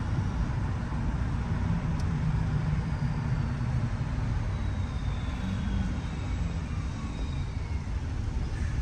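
Car driving on city streets: a steady low rumble of engine and tyre noise, with a sharp click about two seconds in and faint high tones sliding down in pitch midway.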